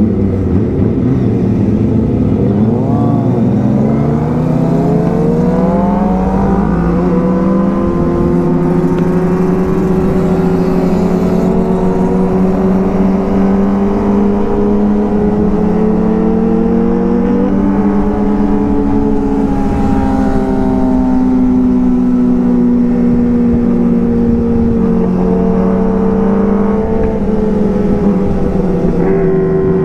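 Kawasaki Ninja ZX-25R's 250 cc inline-four engine heard from on board while riding. Its pitch climbs as it accelerates a few seconds in, then holds a mostly steady cruise, with small rises and drops as the throttle changes.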